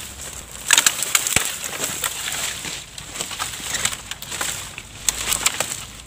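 Dry twigs and brush crackling and snapping as they are trodden on and pulled aside while the brush is cleared. Two spells of quick crackles come about a second in and again about five seconds in, with one dull thump in between.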